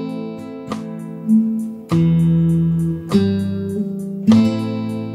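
Guitar playing a slow, simplified bass line of single plucked notes together with a three-string chord, at about 50 beats a minute, over a backing track with a steady fast ticking high up.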